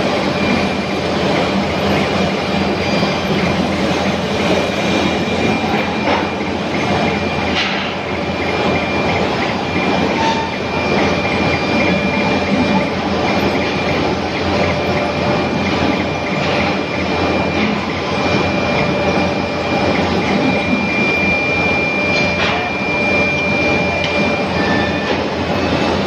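Steady, loud industrial noise of a foundry floor: a dense mechanical rumble with a high, steady whine that fades out and comes back.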